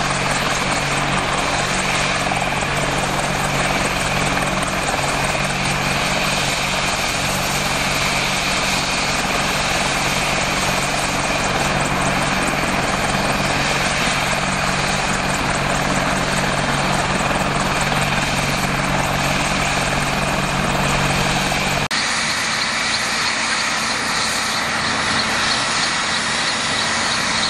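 AH-64D Apache Longbow helicopter running on the ground with its rotors turning: a loud, steady turbine whine over the beat of the rotors from its two T700 turboshaft engines. About two-thirds of the way through the sound changes abruptly, the low hum dropping away and a higher whine coming forward.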